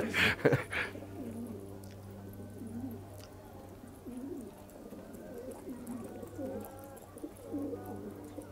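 A flock of domestic pigeons cooing, many low wavering coos overlapping one another.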